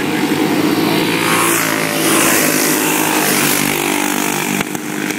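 A pack of dirt-track racing karts running at speed and passing close by. Their small engines get louder over the first two seconds, then drop in pitch as they go past.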